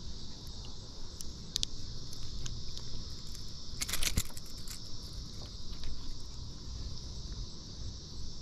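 A steady high drone of insects over a low rumble, with scattered clicks and knocks, the loudest a short cluster about four seconds in.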